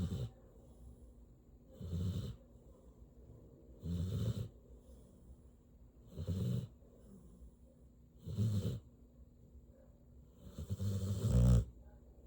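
Mixed-breed dog snoring in its sleep: six snores about two seconds apart, the last one longer and loudest near the end.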